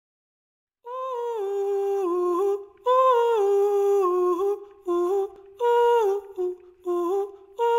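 Soundtrack music: a solo voice humming a slow, wordless melody in short phrases, starting about a second in, with no instruments behind it.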